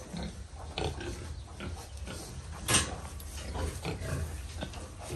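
Domestic pigs grunting, with a short, sharp noise about two and a half seconds in.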